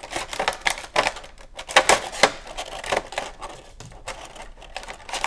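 A clear plastic accessory bag crinkles and crackles as a pocket knife slits it open: a run of irregular sharp clicks and rustles.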